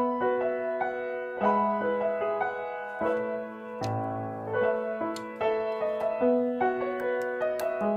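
Background piano music: a gentle melody of held notes over a slowly changing bass line.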